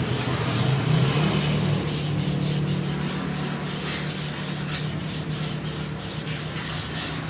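Hand sanding: sandpaper rubbed back and forth over a surface in quick, even strokes, about three a second, over a steady low hum.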